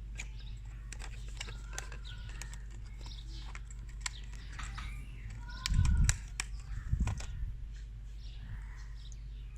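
Scattered light clicks and handling noises as a strip of staples is broken off and loaded into the magazine of a LUX-TOOLS hand hammer stapler, with a couple of dull knocks about six and seven seconds in.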